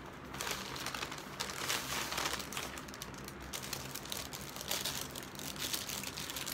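Paper takeout bag and paper food sleeve rustling and crinkling as hands dig into the bag, pull out the sleeve and fold it open, in irregular clusters.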